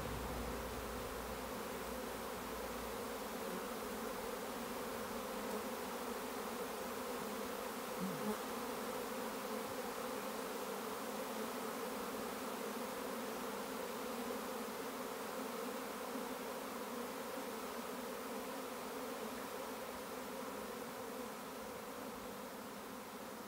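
A honeybee swarm buzzing as it settles into a hive box: a steady, dense hum of many bees in flight, with a brief louder buzz about eight seconds in, easing slightly near the end.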